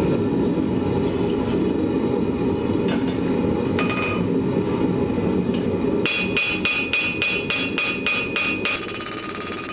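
Ball-peen hammer striking hot steel on an anvil: a few scattered blows, then a quick run of about ten ringing strikes at roughly four a second. Underneath is the steady roar of a gas forge, which drops away near the end.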